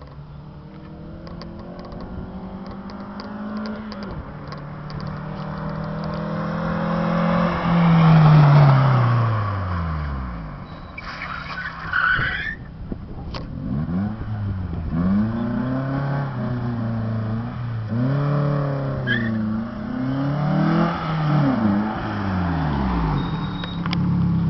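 VW Gol G3 four-cylinder engine with a sport exhaust, straight pipe and open air filter, being revved. One long rise in revs peaks about eight seconds in and falls away, and a short hiss follows. Then comes a string of quick throttle blips before it settles back near the end.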